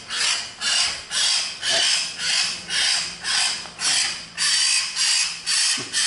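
Young hill myna giving a harsh, hissing call over and over, about twice a second, typical of a chick begging while it is hand-fed.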